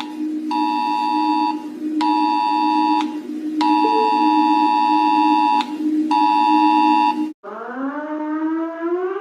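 Emergency alert alarm tones: a steady low two-note drone with a higher two-note tone pulsing on and off over it in bursts of about one to two seconds. About seven seconds in it cuts off, and a siren starts, climbing in pitch as it winds up.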